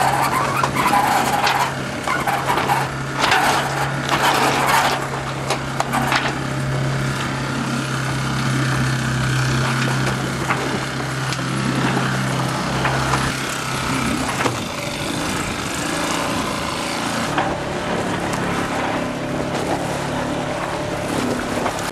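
A boat's motor running steadily at a low, even pitch under the rustling, flapping and clatter of a sail being lowered, which is busiest in the first few seconds. About two-thirds of the way through, the motor's note changes.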